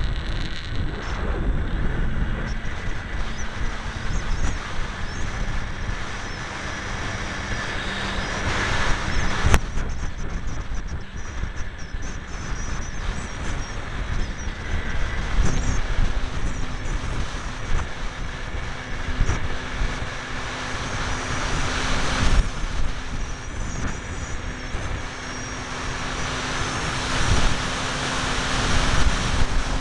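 Wind buffeting the onboard camera's microphone of a ParkZone T-28 Trojan electric foam RC plane in flight, a continuous rushing and rumbling noise. Under it runs a faint steady hum from the electric motor and propeller that changes pitch a few times.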